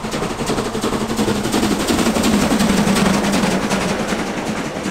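Steam locomotive working up a steep grade, its exhaust beating out rapidly and evenly, several sharp chuffs a second. It grows louder toward the middle of the stretch and eases off near the end.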